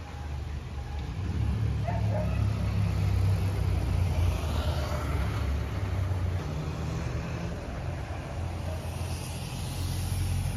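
Motor scooter passing on a cobblestone street, its engine and tyres rumbling loudest a few seconds in and then easing off.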